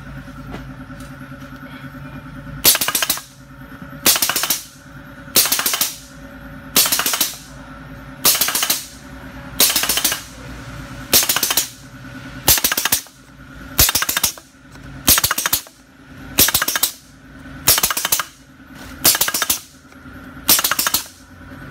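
Jianshan pneumatic spawn-inoculation gun firing about every second and a half, each trigger press giving a quick double shot as the electric trigger drives the piston twice to pack sawdust shiitake spawn into a drilled hole in the log. A steady hum runs underneath.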